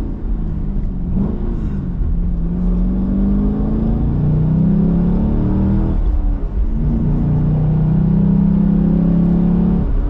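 Chevrolet Camaro SS V8 accelerating hard in a full-throttle pull, heard from inside the cabin through the stock exhaust. The engine pitch climbs, breaks briefly about six seconds in where a gear change drops it, then climbs again.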